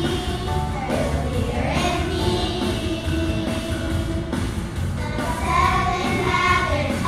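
Second-grade children's chorus singing a song together.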